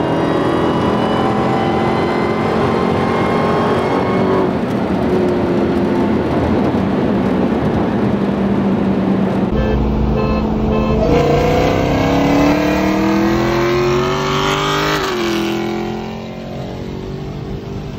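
Car engine running hard at speed, holding a steady pitch. About halfway through it is wide open and accelerating, its pitch climbing for several seconds, then dropping sharply once at a gear change before the sound eases off.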